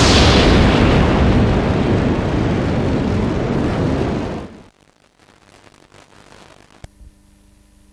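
A loud rushing, rumbling sound effect starts suddenly, fades slowly and cuts off after about four and a half seconds. Faint videotape hiss and hum follow, with a click near the end.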